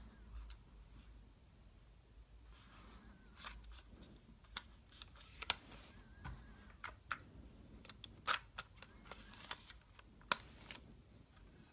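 Plastic-and-metal clicks and handling noise from a Victor CX-51 cassette walkman as its cassette door is opened and snapped shut, a series of sharp separate clicks with brief rustling between them, the loudest about five and a half seconds in.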